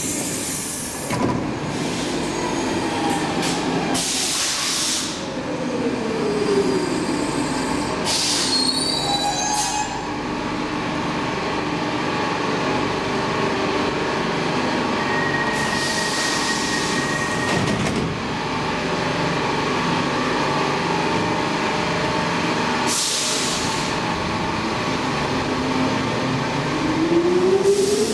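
Stockholm Metro C14 train standing at the platform with its doors open: a steady mechanical hum, several short hissing bursts and a steady beep lasting a few seconds midway. Near the end its motors whine upward in pitch as it starts to pull away.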